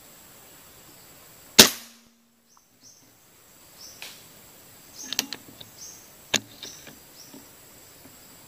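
A single sharp air rifle shot about one and a half seconds in, dying away quickly. After it come short high chirps and several sharp clicks, the two loudest clicks about a second apart.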